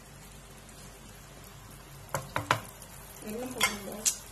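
Faint sizzle of a thin tamarind-ginger gravy in a pan while a spatula stirs it, then three sharp knocks of the spatula against the pan about two seconds in, and one more near the end.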